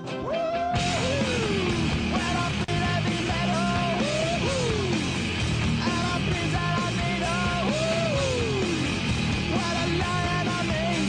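Background music: a loud rock song with singing cuts in about a second in, replacing a different piece of music.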